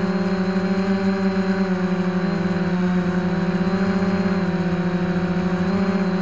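Hoverthings Flip Sport FPV quadcopter's four electric motors and propellers buzzing steadily at hover, heard up close from the camera mounted on the quad. The pitch wavers and dips slightly a few times as the throttle is corrected.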